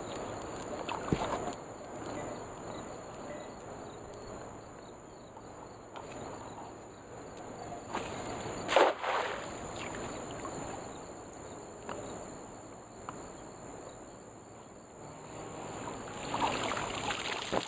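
A nylon cast net thrown out over a river lands on the water with one short splash about nine seconds in. Near the end the net is hauled up out of the water, water splashing and streaming from it.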